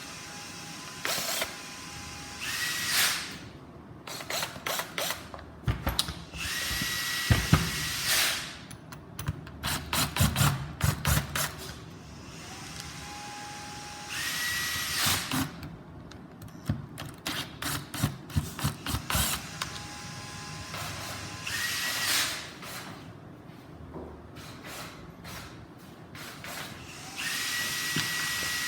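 A small cordless power driver runs in short bursts, each spinning up to a steady whine for a second or two, alternating with runs of rapid ratcheting clicks, over and over, as when screws are driven in or out one after another.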